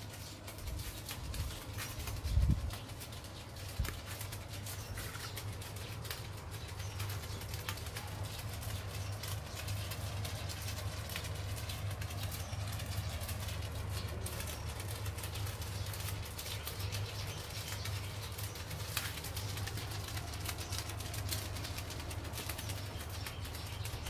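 Electric stand fan running on a homemade foam-box air cooler: a steady low motor hum with air rushing out of the PVC elbow vents and the tape strips over them fluttering. Two low thumps come about two and a half and four seconds in.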